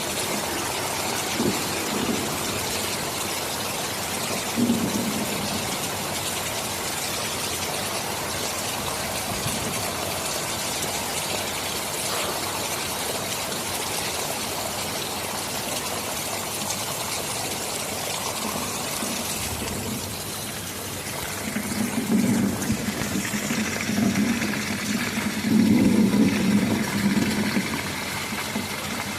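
Steady heavy rain falling, with low rolls of thunder rumbling through the last third.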